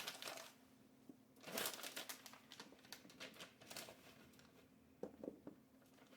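Faint crinkling of a plastic vacuum-sealer bag in a few short bursts as cut carrot pieces are packed into it.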